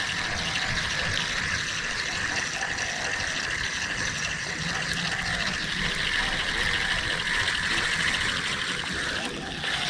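Spinning reel being cranked to retrieve fishing line, its gears giving a fast, even whirring tick. A steady high-pitched drone runs underneath.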